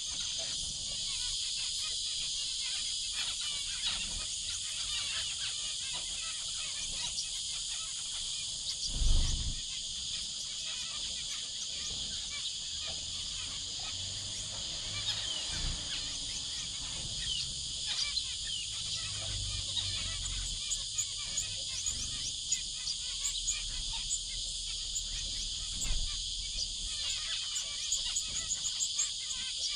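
Gouldian finches giving many short, soft chirping calls over a steady high hiss of insects. A few low thumps come through, the loudest about nine seconds in.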